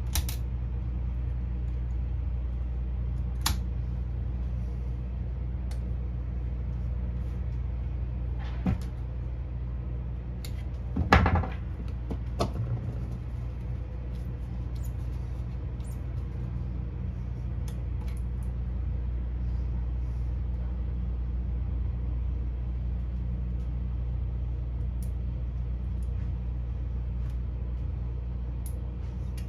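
A steady low mechanical hum runs throughout, with a few small clicks and one louder clunk about eleven seconds in. This is typical of hand work with splicing tools.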